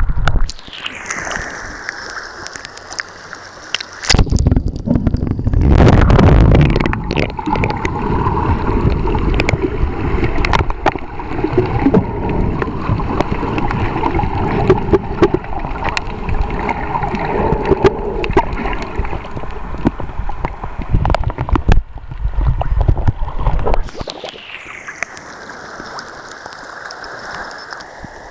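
Sea water around a waterproof camera as it goes under and back above the surface while snorkeling. Above the water at the start and again near the end, it gurgles off the camera with a hiss that falls in pitch. After about four seconds the camera is submerged for some twenty seconds, giving a loud, muffled underwater rush with many clicks.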